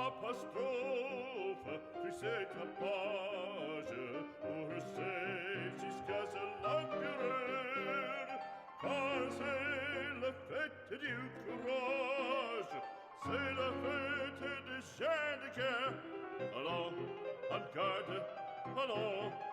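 Background music: classical, operatic-style singing with vibrato over instrumental accompaniment.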